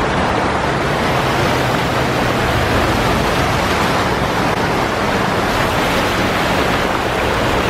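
Steady rushing noise of a car moving along a flooded street, tyres and water spray running without a break, with a low steady hum underneath.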